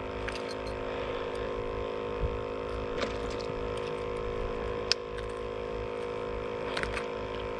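A steady electrical-sounding hum made of several even tones, with a few light, sharp clicks scattered through it as fishing pliers work a hook out of a largemouth bass's mouth.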